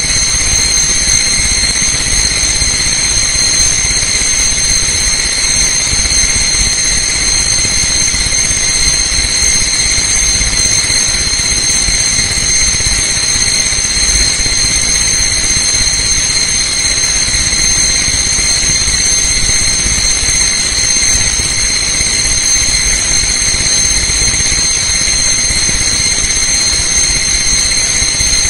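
Loud, steady hiss-like noise with several high, unchanging whining tones over a low rumble.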